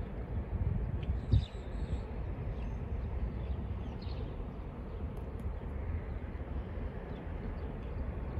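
Outdoor ambience dominated by wind buffeting the microphone as a steady low rumble, with a brief louder thump about a second and a half in. A few faint bird chirps come through near the start.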